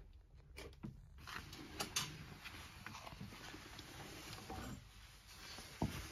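A cat moving about behind a curtain: a few clicks, then soft rustling with scattered ticks for a few seconds, and a sharp knock near the end.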